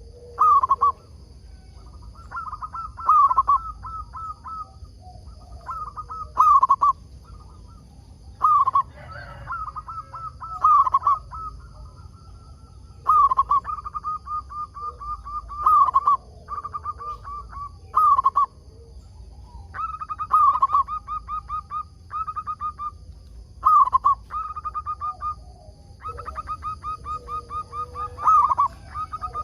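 Zebra dove (perkutut) cooing: repeated phrases of quick, evenly pulsing notes, each opening on a sharper note, one phrase every two or three seconds.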